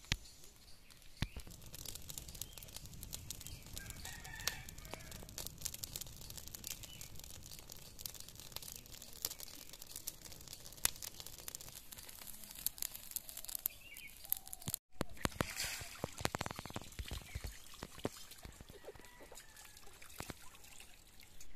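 Burning straw crackling with many sharp pops as a plucked duck is singed over the fire, with chickens clucking and a rooster crowing in the background.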